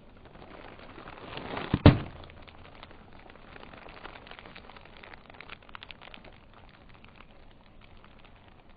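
Sealed, air-filled plastic bread bag bursting with a loud pop under a slowly rolling car tyre about two seconds in, after a brief crinkle of plastic. Faint crackling of the crushed wrapper and grit under the tyre follows.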